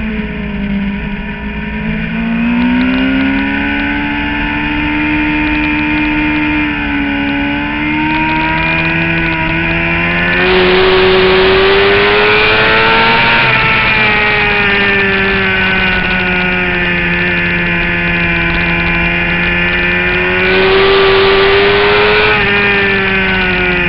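Suzuki GSX-R750 inline-four engine heard onboard at racing speed, its pitch climbing and dropping with throttle and gear changes. The engine and a rushing wind noise get louder about ten seconds in and again near twenty seconds in.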